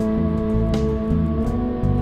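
Background music: held chords with a light, regular beat.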